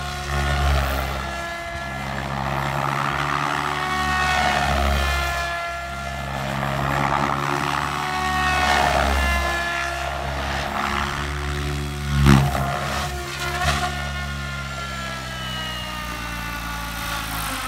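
Electric RC helicopter in flight on a tuning test flight: a steady motor and rotor whine over a rumble of rotor wash, swelling and easing as it manoeuvres, with slight dips and rises in pitch. One sharp thump comes about two-thirds of the way through.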